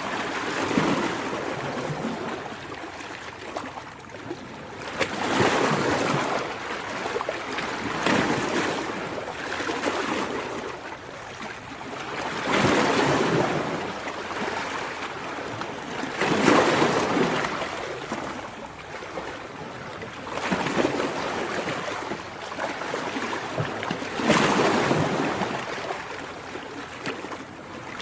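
Ocean waves breaking and washing up a beach, one surge every three to four seconds, swelling and falling back.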